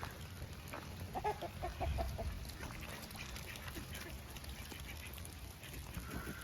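Ducks quacking: a quick run of about five quacks a little over a second in, over steady rain pattering down.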